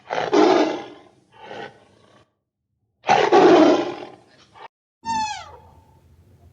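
A large animal roars loudly, three times, the second roar short. Then, about five seconds in, a dog gives a high-pitched whine that falls in pitch.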